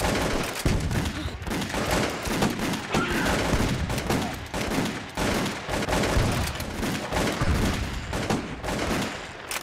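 Rapid, sustained gunfire: many shots in quick, irregular succession, stopping abruptly at the end.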